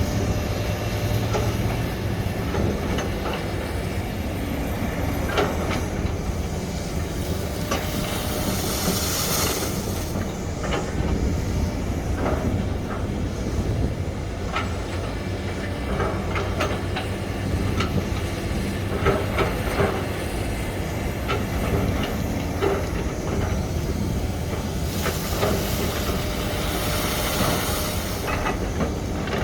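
SANY long-arm hydraulic excavator working: its diesel engine runs with a steady drone under scattered metal clanks and knocks, and two spells of hiss come about eight seconds in and again near the end.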